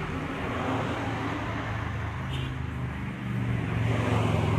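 Low, steady hum of a motor vehicle engine, getting a little louder near the end.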